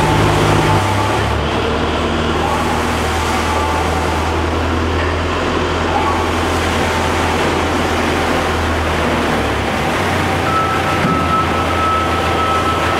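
Double-shaft shredder running, its pair of 30 kW electric motors humming steadily while the cutter shafts grind iron chips into a continuous noisy clatter. A faint thin whine comes in near the end.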